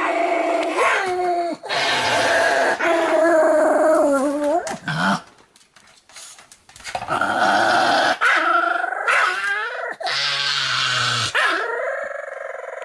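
Pomeranian growling and yowling in long, wavering drawn-out calls with short yips, worked up and angry; it breaks off for about a second and a half midway, then starts again.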